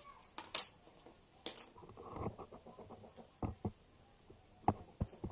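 Hands and fingernails working through hair during nit and lice picking: a few short sharp clicks scattered through, with a soft rustle of hair about two seconds in.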